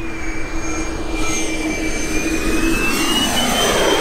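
Twin Schubeler 120 mm electric ducted fans of a large RC Airbus A350 model running in flight. A high fan whine with a jet-like rush grows louder and climbs in pitch over the last second or so as the plane comes close.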